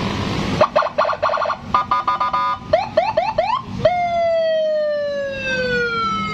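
Custom police-escort (patwal) style electronic car siren cycling through its tones, starting about half a second in: a burst of fast stuttering chirps, a quick pulsed beeping, four rapid rising whoops, then one long tone falling slowly in pitch.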